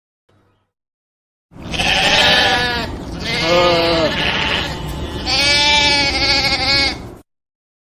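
Sheep bleating: about three long, wavering bleats, one after another, starting about a second and a half in and cutting off abruptly near the end.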